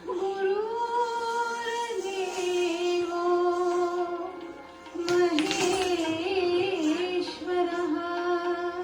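Indian classical music for a Kathak dance: long held melodic notes with slow ornamented bends, and a brief burst of percussion about five seconds in.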